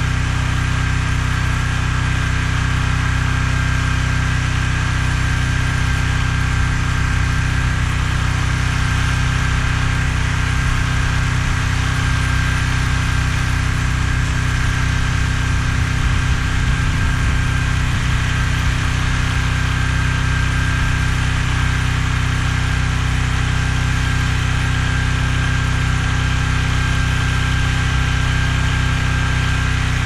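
Small engine of a towable backhoe trencher running steadily, with a thin steady whine above the engine note.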